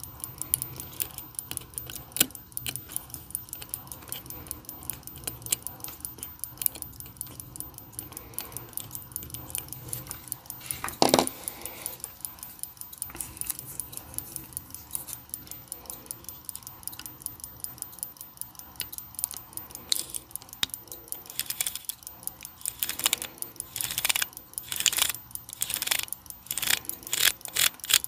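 Running BFG 158 jump-hour watch movement ticking in quick, even beats, mixed with light metal clicks from tweezers handling it. One louder knock comes about 11 seconds in, and louder, more spaced clicks come in the last few seconds.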